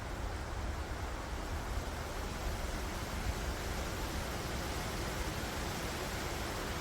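Wind blowing through forest trees: a steady rustle of leaves with a low, uneven rumble underneath.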